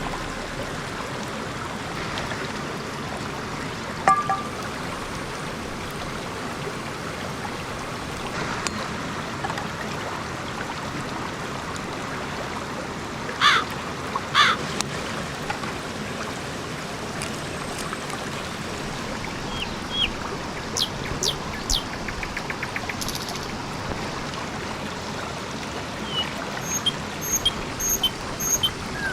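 Steady rush of running water, with a few short high bird chirps, and near the end a bird repeating a short high note about three times a second.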